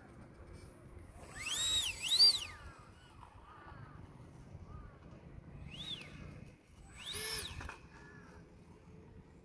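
FMS 70 mm 12-blade electric ducted fan on an RC truck whining in short throttle blips. Its pitch rises and falls four times: twice in quick succession about two seconds in, the loudest, then once around six seconds and once more just after seven.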